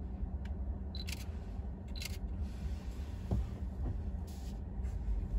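Low steady rumble of a car driving slowly, heard from inside the cabin, with a few short sharp clicks about one and two seconds in.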